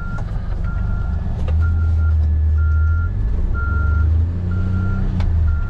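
A vehicle's backup alarm beeping in reverse, a steady high beep repeating about once a second, over the low running of the engine.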